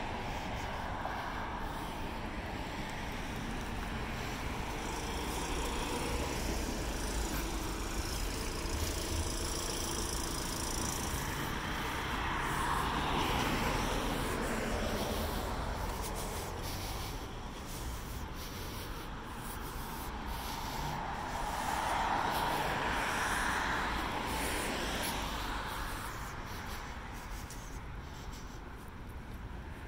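Road traffic passing: two vehicles swell up and fade away, one about 13 seconds in and one about 22 seconds in, over a steady low rumble.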